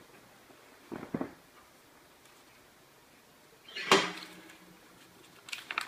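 Large sheets of newsprint rustling as they are peeled off a printing plate on an etching press bed and draped over the roller. A short rustle about a second in and a louder, sharp clatter about four seconds in, then light rustles near the end.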